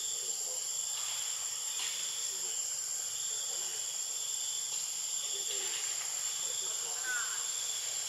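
Insects droning steadily with a continuous high-pitched buzz. A short chirp sounds about seven seconds in.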